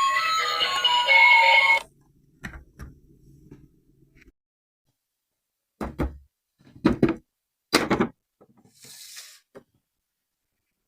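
Background music that cuts off suddenly about two seconds in, followed by a handful of scattered knocks and thuds, loudest about six to eight seconds in, and a brief hiss near the end.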